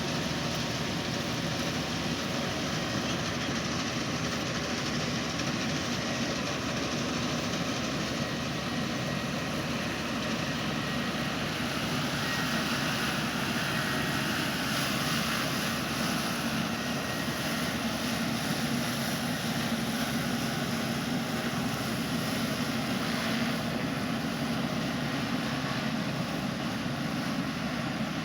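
Tracked combine harvester running steadily, a continuous engine and machinery drone that grows slightly louder and brighter through the middle stretch.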